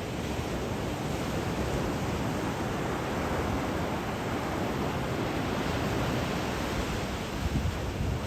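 Sea waves washing onto the shore: a steady, even rushing, with wind buffeting the microphone in low gusts near the end.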